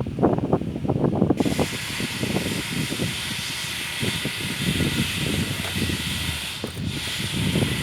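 A steady hiss that starts suddenly about a second and a half in, with a brief break near the end, over a low rumble of wind on the microphone.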